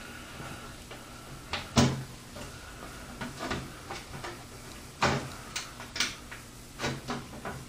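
Scattered clicks and knocks, the loudest about 2, 5, 6 and 7 seconds in, from mounting screws and the radiator being handled against the PC case while the screws are started by hand.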